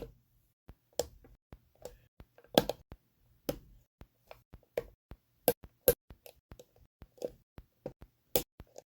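LEGO bricks being handled and pressed together: irregular sharp plastic clicks and clacks, about one or two a second, some louder than others.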